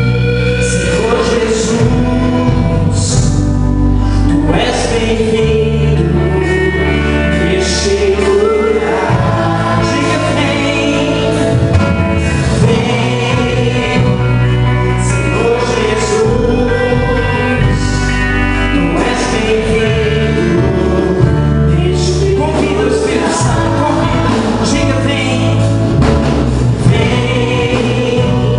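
Gospel worship band playing with a group of singers, held bass notes under the sung melody, loud and steady throughout.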